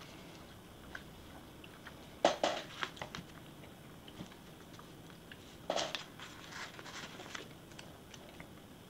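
Planner paper pages being handled and shifted on a table: two sharp paper rustles, about two and six seconds in, each followed by a few light ticks.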